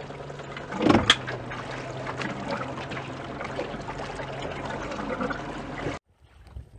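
Water splashing against a small boat's hull with a steady low hum, and a loud knock about a second in. The sound cuts off suddenly near the end.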